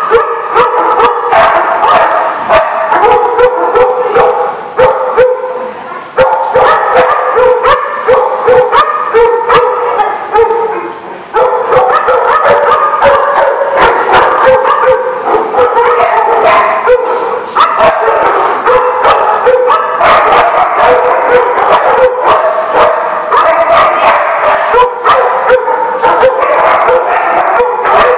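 Many dogs barking loudly at once while they play, a constant din of overlapping barks with sharp single barks cutting through.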